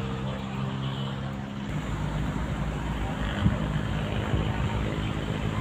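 A motor engine running steadily: a low hum with a few held tones, giving way about two seconds in to a broader low rumble.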